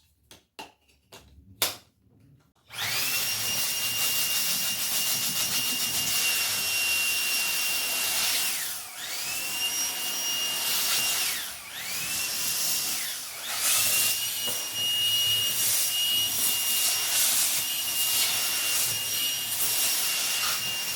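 A few sharp clicks, then the Dreame V11 cordless stick vacuum switches on about three seconds in. Its high-speed motor runs with a steady high whine and air rush. The whine briefly sags and recovers about three times.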